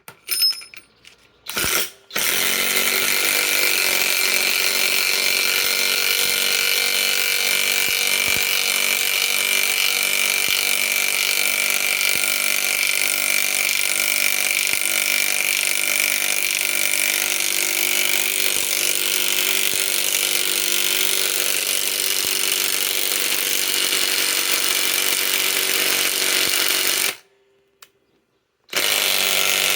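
Flex FX1451 mid-torque cordless impact wrench hammering without a break for about 25 seconds as it drives a 10-inch lag screw into wood, after a few light metallic clinks. It stops briefly, then starts hammering again near the end.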